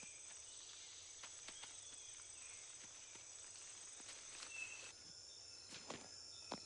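Faint jungle ambience: a steady, high-pitched chorus of chirring insects, with a few soft clicks and rustles scattered through it.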